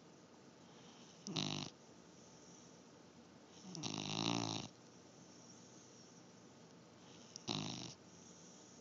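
Snoring: three loud snores over a quiet background. A short one comes about a second and a half in, a longer pitched one around four seconds in, and another short one near the end.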